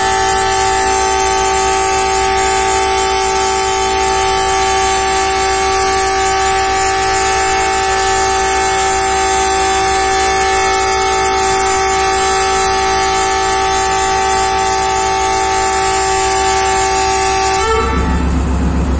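A ZCU-30 diesel-electric locomotive's horn sounds one long, steady blast of several notes together for almost 20 seconds. It cuts off near the end, leaving the locomotive's low engine rumble.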